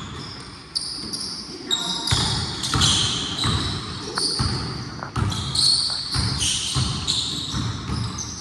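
Basketball game play on an indoor court: sneakers squeaking sharply and repeatedly, with the ball being dribbled at about two bounces a second.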